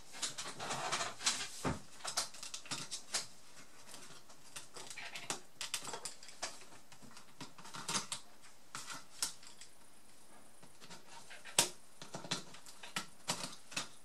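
Irregular small clicks, taps and scrapes of a screwdriver, a plastic pry tool and fingers on an opened Toshiba Satellite Pro A300 laptop's plastic case and parts as it is taken apart. One sharper click comes about two thirds of the way through.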